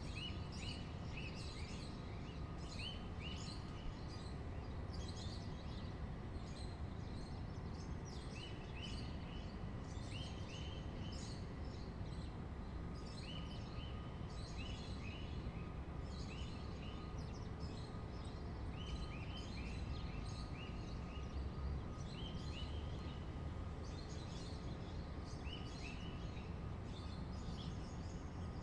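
Small birds chirping in short runs of several quick notes every couple of seconds, over a steady low outdoor rumble.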